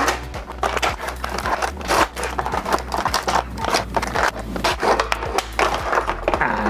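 Clear plastic blister packaging crackling and rustling in quick, irregular clicks, with cutting snips and scrapes, as an action figure is cut free and pulled out of its tray.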